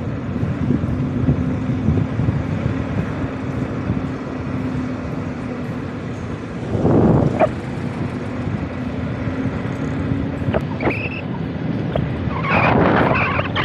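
Road and wind noise from riding an electric motorcycle in traffic, with a steady low hum through most of it. The noise swells briefly about seven seconds in and rises again near the end.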